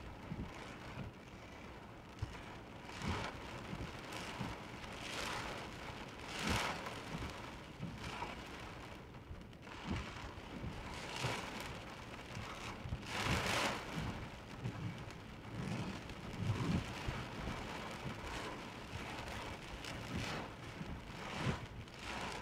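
Heavy rain pelting a car's roof and windows, heard from inside the stationary car. It rises and falls in loud surges every second or two, with scattered heavier knocks.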